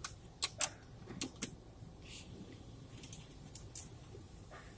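Irregular sharp taps and clicks on the car's body and glass, heard from inside the cabin as an automatic car wash's brushes and water spray strike the car, over a steady low rumble.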